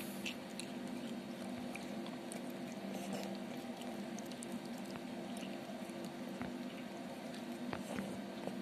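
A cat chewing and licking wet watermelon flesh: soft, irregular wet smacks and clicks over a steady low hum.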